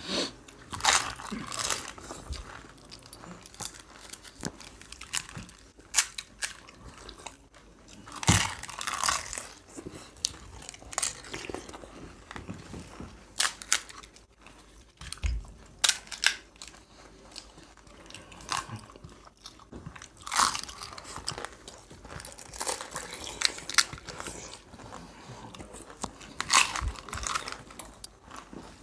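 Crisp panipuri shells crunching as they are bitten and chewed, in irregular bursts of crackling.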